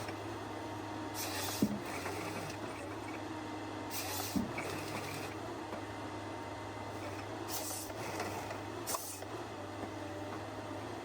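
Logset 6HP GTE forestry harvester at work: a steady low hum of the machine running, with four short bursts of hiss and a couple of light knocks.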